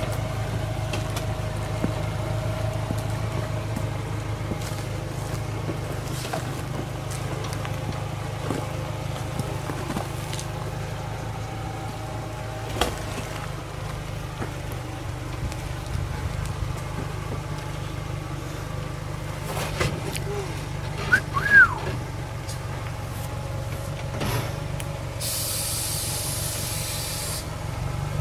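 Mitsubishi L300 4x4 van's 2.4-litre 16-valve petrol engine running steadily at low revs as the van crawls over rock ledges, with scattered knocks. Two short high chirps come about two-thirds of the way in, and a burst of hiss lasts about two seconds near the end.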